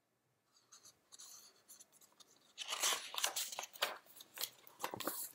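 Pages of a picture book being turned by hand, a crackly paper rustle and flapping that starts about halfway through.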